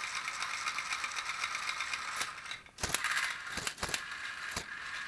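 Robot lizard toy's small electric motor and plastic gearbox whirring with a fast ratchety clicking as its legs run. It stops briefly about halfway, with a few sharp knocks, then runs on.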